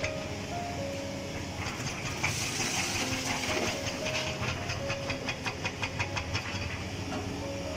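Background music: a simple melody of short held notes over a fast, even tapping beat, about five taps a second, with a steady low rumble underneath.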